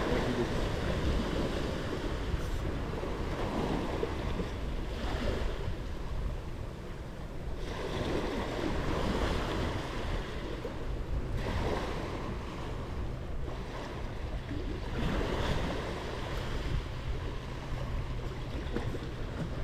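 Small sea waves breaking and washing up a sand beach, the surf swelling and easing every few seconds.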